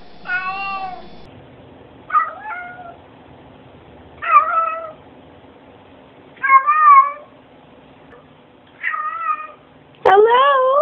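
Two domestic cats, one after the other, meowing: six drawn-out meows about two seconds apart, each wavering in pitch, the last one loud and rising.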